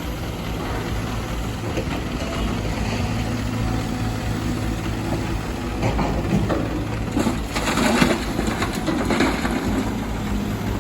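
Excavator's diesel engine running steadily. From about six seconds in, rock and soil rattle and crash for a few seconds, loudest around eight seconds.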